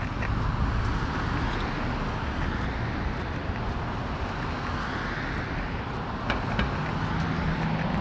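City street traffic: cars driving past on a downtown road, with a swell as one passes about halfway through. A steady low hum comes in near the end.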